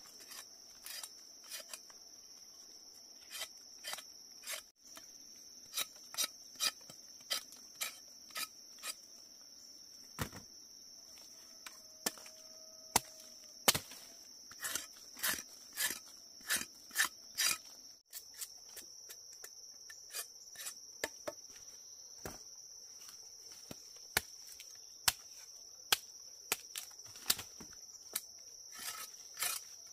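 A steady, high-pitched insect chorus, with irregular sharp knocks and clicks that come thickest in the middle.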